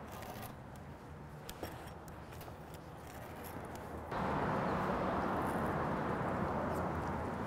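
A pizza cutter wheel rolling through a crisp wood-fired crust, with a few faint crackles and clicks; about four seconds in a louder steady hiss cuts in suddenly.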